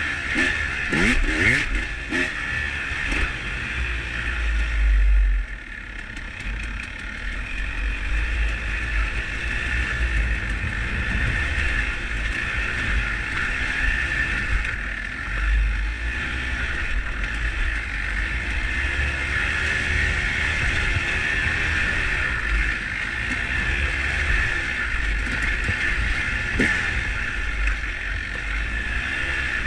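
Dirt bike engine running under changing throttle on a dirt trail, its pitch rising and falling as the rider rolls on and off, with wind buffeting the microphone.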